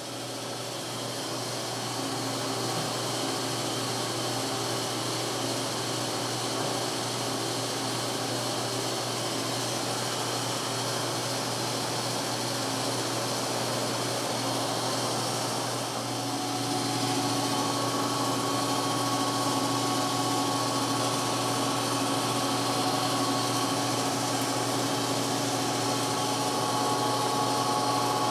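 Metal lathe coming up to speed and running steadily while a large twist drill in the tailstock chuck bores into the spinning metal workpiece. About halfway through, the sound gets a little louder and a steady whine joins in as the drill cuts.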